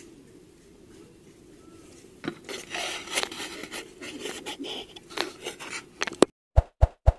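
Rubbing and scraping against the camera microphone, with a few knocks, which sets in about two seconds in after a quiet low hum. Near the end the sound cuts off abruptly to silence, broken by three sharp pops.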